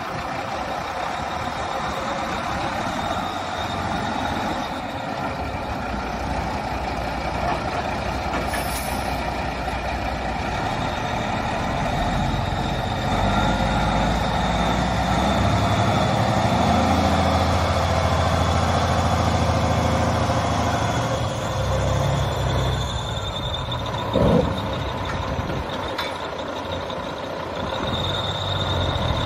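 Caterpillar C15 diesel engine of a Kenworth T800 log truck running, with a steady high whistle over it; the engine sound grows heavier from about halfway through as the truck drives, and there is a brief thump about 24 seconds in.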